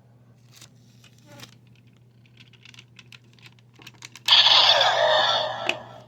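Small plastic clicks from a DX Assault Bullet Progrise Key toy being handled and its parts pressed and fitted. About four seconds in, the toy's small speaker plays a loud electronic sound effect for about a second and a half.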